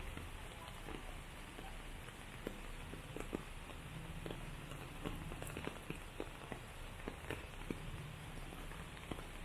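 Rain falling on wet paving, plants and the pool: a steady hiss with scattered individual drops ticking.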